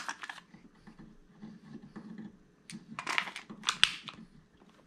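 Handling noise of a SIG Sauer P320 pistol turned over in the hands: a few short clicks and rustles at the start and again between about three and four seconds in, the sharpest just before four seconds.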